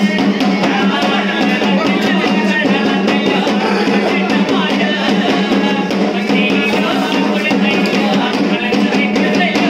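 Loud ritual music: fast, continuous drumming over a steady droning note, with some singing.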